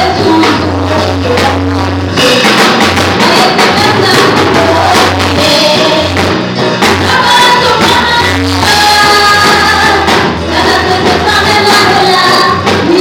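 Live gospel music: a woman sings lead into a microphone with backing singers, over a drum kit and a steady, pulsing bass beat, played loud.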